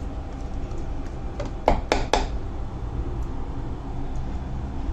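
Spoon stirring thick semolina batter in a bowl, with a quick run of three or four sharp clinks of the spoon against the bowl about two seconds in, over a steady low hum.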